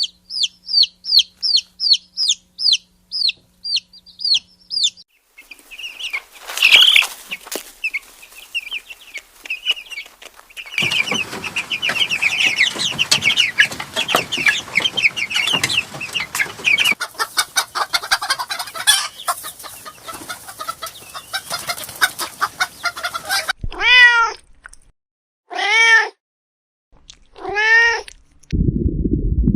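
Young poultry peeping: first a single bird's high, evenly repeated peeps, then many birds cheeping together over a noisy background. Near the end come three separate drawn-out calls from a young animal, each rising and falling in pitch, then a low rumbling noise starts.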